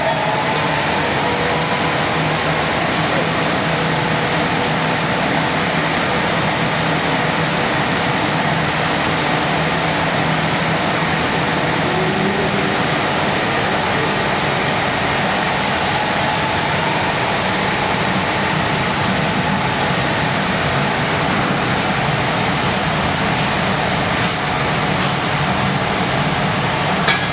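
Neptun Tornado Easy 2044 horizontal glass washing machine running: a steady, even rush of noise over a faint low hum, with two short clicks near the end.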